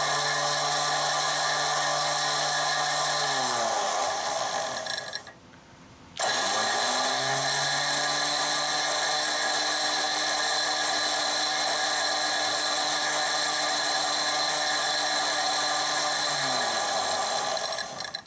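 Warn M8000 winch's electric motor and gear train running with a steady whine, operated from the handheld remote. It winds down with falling pitch about four seconds in, is quiet for about a second, then spins back up and runs about ten seconds more before winding down again near the end.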